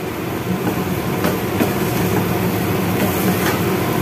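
Wooden spatula stirring and scraping fried tiwul (cassava rice) around a nonstick frying pan, the rice frying steadily. A few sharp knocks of the spatula against the pan come through.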